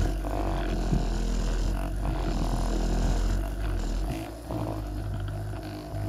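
Percussion massage gun running with its head pressed into the sole of a bare foot: a steady low motor hum. About four seconds in the deepest part of the hum drops away and the sound gets a little quieter.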